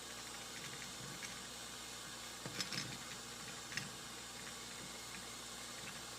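Propane torch flame hissing steadily while a brass cartridge case is heated for annealing, with a few light clicks a little past the middle.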